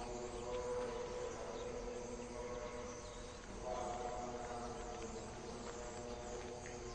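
Background film score of held, sustained tones that shift to a new chord about halfway through.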